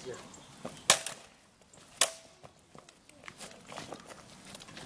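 Steel swords clashing in sparring: two sharp clashes about a second apart, each with a brief metallic ring, and a few lighter taps.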